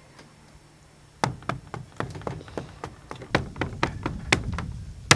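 Knocking on a wooden door: repeated sharp raps, mostly in quick sets of three, starting about a second in.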